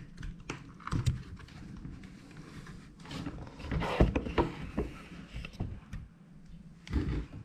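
Scattered light knocks, clicks and rustling from hands handling and fitting a helmet camera mount, the loudest knocks about a second in, around four seconds in and near the end.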